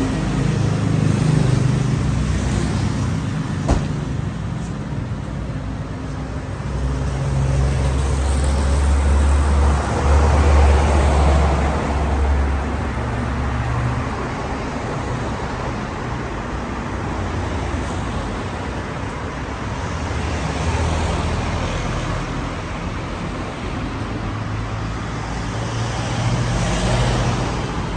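A motor vehicle's engine running, with road traffic noise around it. Its low hum swells about eight to twelve seconds in, then eases back.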